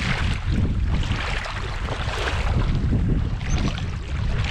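Wind rumbling on the microphone over shallow sea water sloshing and lapping, in uneven swells.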